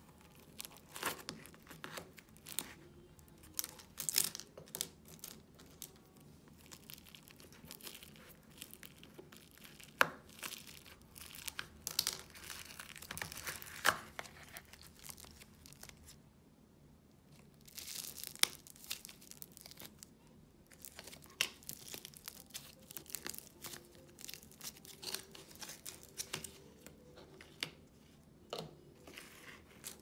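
Soft air-dry clay being pulled apart, stretched and squeezed by hand, giving a run of small crackles, pops and tearing sounds with a few sharper snaps. There is a quiet pause of a second or two just past halfway.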